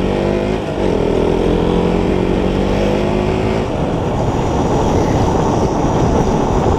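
Motorcycle engine running steadily as the bike is ridden, with wind rush on the microphone. A little past halfway the engine tone drops away, leaving a steady rush of wind and road noise.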